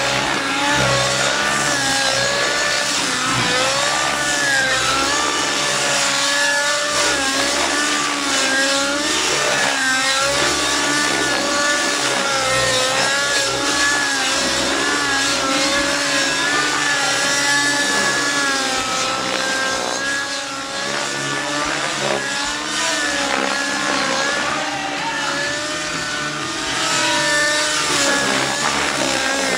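Nitro glow-engined Outrage Velocity radio-controlled helicopter in aerobatic flight: the engine and rotor whine keep rising and falling in pitch as the model swoops and climbs.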